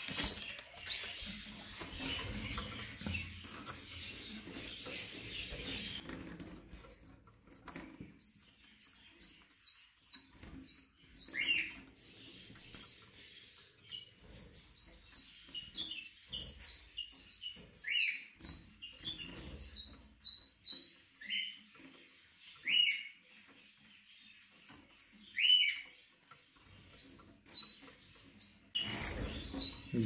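Caged goldfinch × canary hybrid calling: a long series of short, high chirps at about two a second, with a few lower calls that slide downward mixed in.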